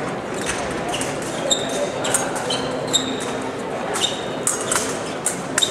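Fencing footwork and blade contact: shoes tapping and stamping on the piste, with short metallic clinks of the steel blades meeting, over a steady hall murmur.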